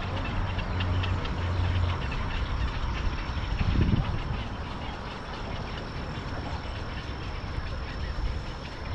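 A nesting colony of herons and egrets calling, a dense chorus of overlapping guttural croaks and squawks. A low rumble comes through about four seconds in.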